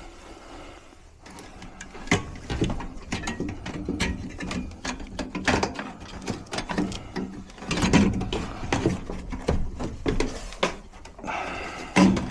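Irregular metallic clicks, knocks and clatter of hand tools and fittings being handled during work on a furnace's gas valve, quieter for the first couple of seconds.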